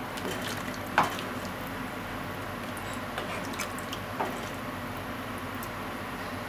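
Plastic spatula stirring chunks of vegetables in water in a pot: liquid sloshing, with a sharp knock of the spatula against the pot about a second in and a lighter one around four seconds in, over a steady hiss.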